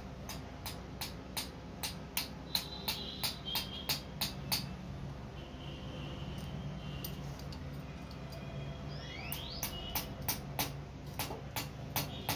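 Small hammer tapping metal on metal to drive a part home and seat it, about two to three light taps a second, in two runs with a pause of several seconds between them.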